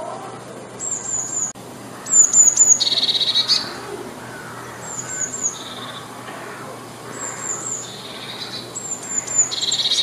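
Eurasian blue tit singing: about five phrases, each of two or three high, thin falling notes followed by a lower, fast trill.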